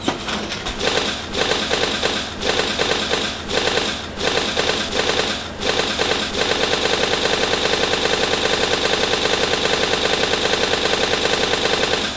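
Loud, rapid rattling stutter like machine-gun fire, choppy at first, then settling about halfway into an even, fast repeating pulse.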